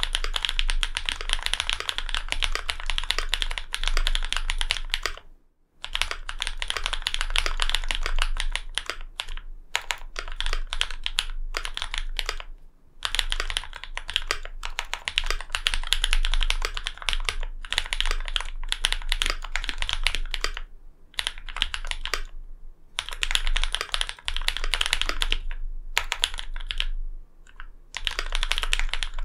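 Fast typing on a LINWORKS Whale75 custom mechanical keyboard: lubed linear switches built from Cherry MX Black housings, NovelKeys Cream stems and 65 g springs, mounted on an aluminium plate with foam-filled case and GMK keycaps. The keystrokes come in dense runs of several seconds with brief pauses between them.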